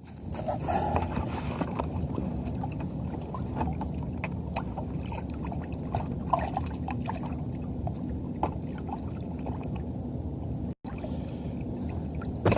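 Water sloshing and trickling against a kayak hull, with scattered light knocks and clicks of gear on the boat.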